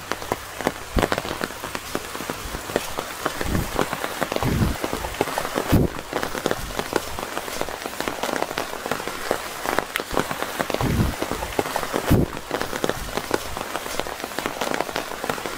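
Steady heavy rain drumming on an open umbrella overhead: a dense run of drop impacts, with a few louder thuds scattered through it.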